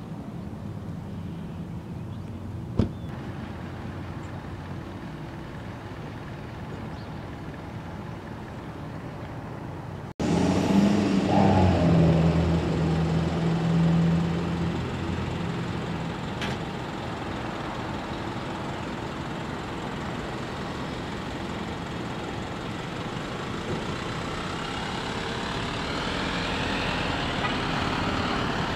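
Steady low rumble of traffic around a parking lot, with one sharp click about three seconds in. After an abrupt cut about ten seconds in, a cab-over box truck's engine runs close by with a steady low hum for a few seconds, then fades into a wash of traffic noise that grows toward the end.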